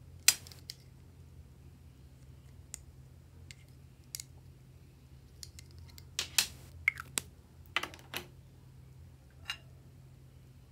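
Scattered sharp clicks and taps of lipstick tubes and caps being handled with long fingernails, one loud click just after the start and a cluster about six to eight seconds in, over a faint low hum.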